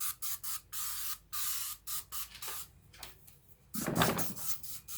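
Spray polish being sprayed in a run of short hisses, some quick and some held for about half a second, with a louder handling noise about four seconds in.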